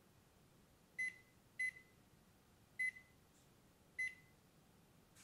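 Four short, faint electronic beeps at uneven intervals, each a single high tone that dies away quickly.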